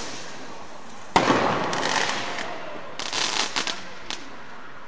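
Fireworks: a sharp bang about a second in that echoes away slowly, then bursts of crackling pops about two and three seconds in, and a last small pop near four seconds.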